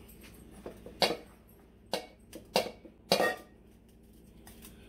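An egg being knocked against the rim of a stainless steel mixing bowl to crack it: several sharp taps over about two seconds, the loudest about a second in.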